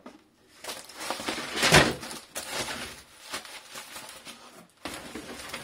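Plastic wrapping and cardboard packaging rustling and crinkling as a wrapped car trim panel is handled in its box, loudest about two seconds in, with a shorter rustle near the end.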